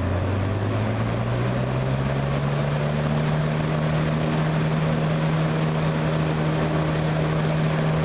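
Westinghouse AW12-1 two-speed box fan with a Marco motor and wide plastic blade, running on high: a steady rush of air with a hum that rises in pitch over the first few seconds as it comes up to speed, then holds steady.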